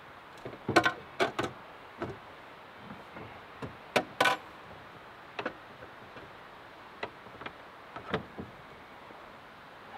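Irregular clicks and knocks from hand work on the service wires at an electric meter socket, the loudest about a second in and again about four seconds in.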